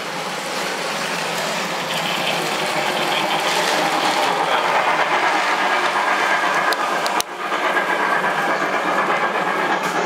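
Model railway trains running on the layout's track: a steady rattling whirr of the wheels and motor on the rails that grows louder over the first few seconds. There is a single sharp click with a momentary drop in sound a little after seven seconds.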